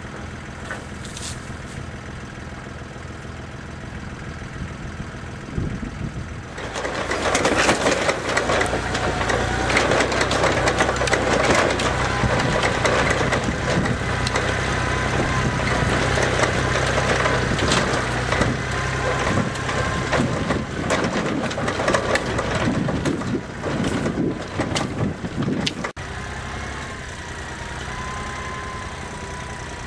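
Jinma compact diesel tractor engine running steadily. From about six seconds in it gets much louder, with a dense clattering and rattling. After a sudden break near the end it runs steadily again with a slowly falling whine.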